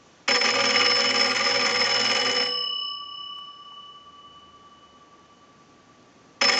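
The twin gongs of an antique Kellogg wooden wall crank telephone ringing on a ring signal sent from a telephone line analyzer: one ring of about two seconds that dies away, a pause of about four seconds, then the next ring starts near the end. The original bells answering an incoming ring cycle show that the converted telephone rings properly.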